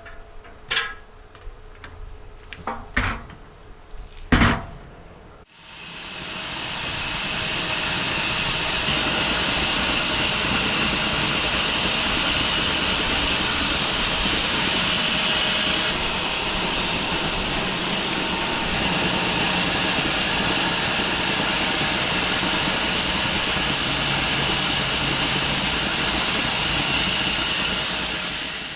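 A few sharp knocks, then a home-built 6 ft wide bandsaw sawmill spins up over a couple of seconds and runs steadily through a cut in a log, giving a loud even hiss.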